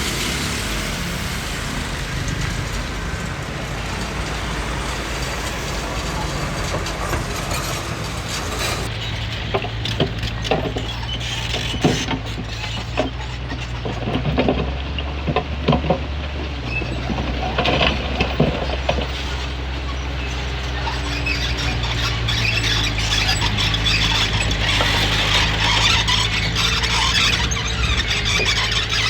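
Komatsu D20P crawler bulldozer working, its diesel engine running steadily. Clanks and knocks come from about ten seconds in, and a high track squeal grows louder near the end.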